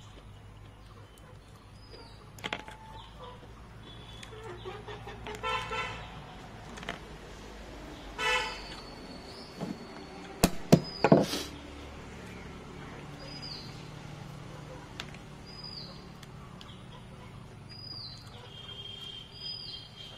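A few sharp knocks about halfway through, as a knife cracks open boiled crab leg shells against a wooden table. Before them come two short tooting notes, and in the second half short high chirps repeat about once a second.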